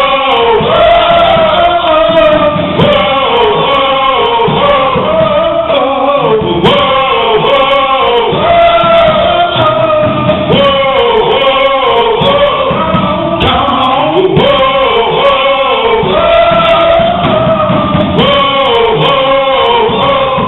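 Male gospel vocal group singing over a band, the voices repeating short rising and falling phrases.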